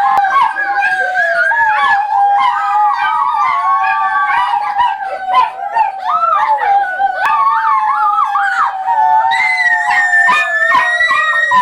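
A dog and several people howling together: long, overlapping, wavering howls that stop together near the end.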